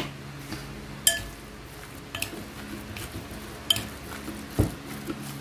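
Metal spoon clinking against a ceramic mixing bowl while a thick chopped banana-heart mixture is stirred: separate sharp clinks about a second apart, with a dull thump a little before the end.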